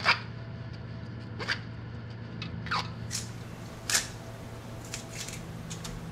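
Fresh-picked peppergrass rustling and crackling in short bursts as the leafy stems are handled and sorted, the loudest burst right at the start, over a steady low hum.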